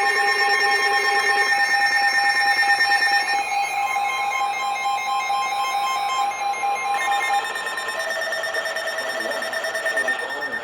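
Several weather radios sounding their alert alarms at once for a Flash Flood Warning, a jumble of steady tones and rapid beeps at different pitches. Some stop about a third of the way in and others start up in their place about two-thirds of the way through.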